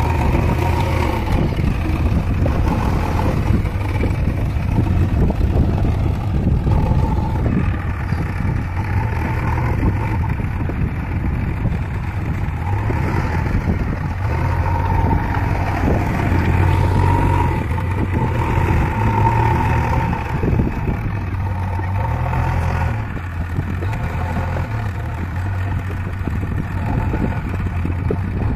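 JCB 3DX Eco backhoe loader's four-cylinder diesel engine running under load, its note rising and falling as the machine drives and works the front loader bucket.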